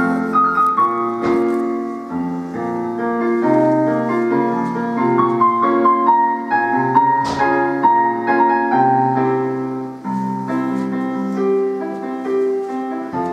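Keyboard with a piano sound playing an instrumental introduction: a melody in the upper notes over held chords and a bass line.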